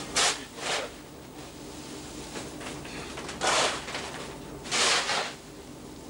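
A metal scoop digging into crushed ice, four short crunching scrapes: two close together at the start, then two more a little over a second apart later.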